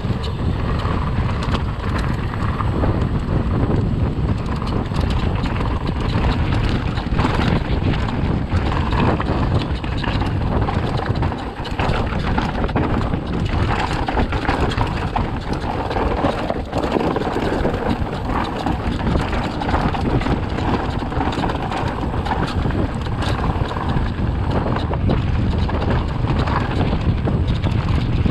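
Wind rushing over the microphone of a camera mounted on a moving mountain bike, with tyre noise and the bike rattling over rough, stony track.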